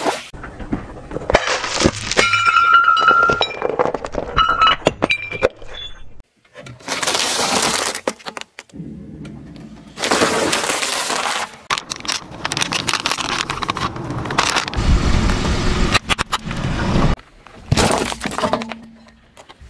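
Objects being crushed one after another under a slowly rolling car tyre, with dense cracking, snapping and crunching. Across several separate takes, it includes a bundle of dry spaghetti snapping under the tyre.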